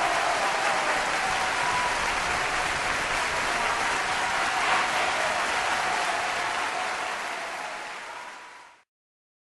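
A large crowd cheering and applauding, a dense steady wash of clapping and voices that fades away over the last couple of seconds and stops about nine seconds in.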